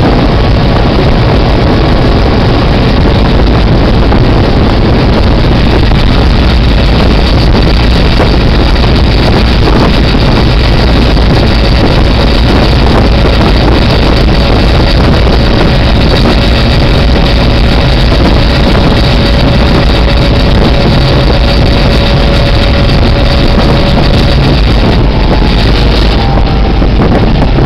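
Diesel locomotive running along the track, a steady loud engine rumble mixed with heavy wind buffeting the microphone.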